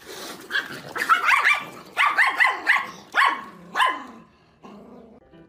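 Dog barking in a rapid run of about ten short barks over some three seconds, then stopping.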